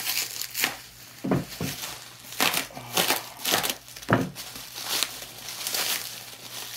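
Plastic packaging crinkling and rustling in irregular bursts as toy accessories are unwrapped by hand, with a few soft knocks.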